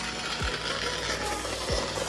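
Retail store ambience: a steady low hum with a light mechanical rattle, under faint background music.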